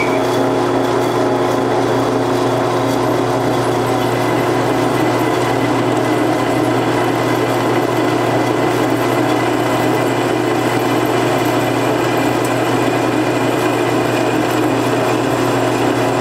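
Drill press running steadily, its twist bit boring into a steel bar.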